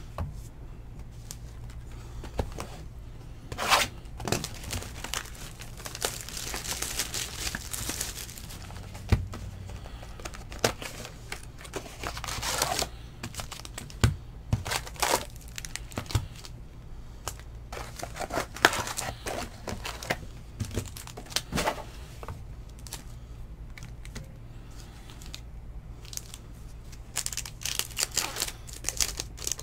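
Foil wrappers of Bowman baseball card packs crinkling as packs are handled and torn open, with irregular clicks and rustles from cards and the box, over a faint steady low hum.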